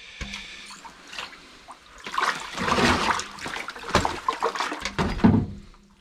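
Water splashing and sloshing in an ice-fishing hole in two rough bursts, the louder one near the end, as a small burbot is pulled up through the hole.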